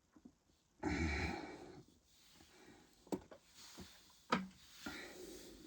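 A man breathing out heavily for about a second while chugging lemonade, fading as it goes, then softer breathing. Two sharp clicks come in the second half.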